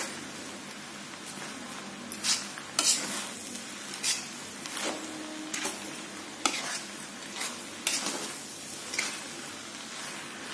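Spatula stirring and tossing fried noodles in a wok, over a steady sizzle, with irregular scrapes and knocks of the spatula against the pan.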